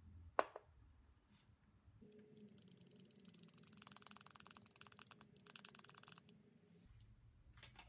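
A glass tumbler knocks once, sharply, as it is set down on a wooden table, then a small plastic bag crinkles with fine, rapid crackling as glitter is tipped from it into the glass.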